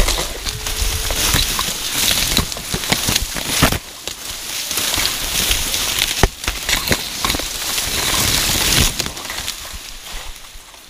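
Dry vegetation crackling and snapping as someone pushes through it on foot, a dense run of crunches with brief lulls about four seconds in and near the end.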